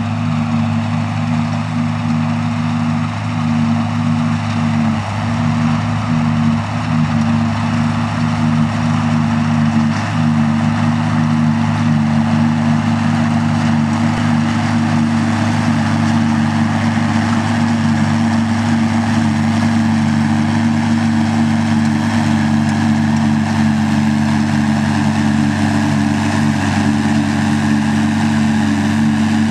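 Farm tractor engine running at steady revs, with a wide mechanical rush over the engine note.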